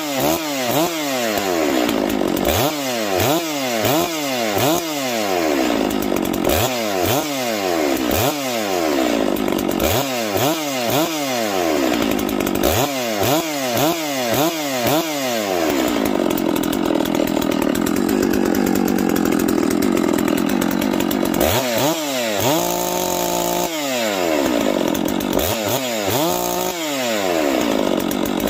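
Farmertec Holzfforma G660 92 cc two-stroke chainsaw, freshly cold-started, being revved. The throttle is blipped in quick bursts of three or four, about one a second, then held at high revs for about five seconds past the middle, then blipped again.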